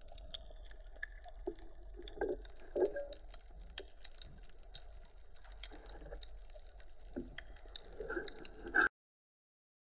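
Underwater ambience picked up by an action camera in its housing: a steady crackle of many small clicks, with a few louder brief sounds scattered through it, cutting off abruptly near the end.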